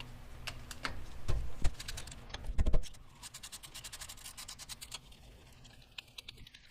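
Ratchet wrench with a 13 mm socket clicking as it loosens the brake caliper bolts, with a quick, even run of clicks a little after two seconds in and a heavier metal knock soon after, then fainter ticks.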